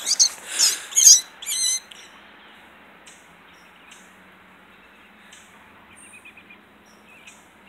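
Gray squirrel caught in a trap giving sharp, high distress squeals, about two a second, which stop about two seconds in. Faint short bird chirps follow.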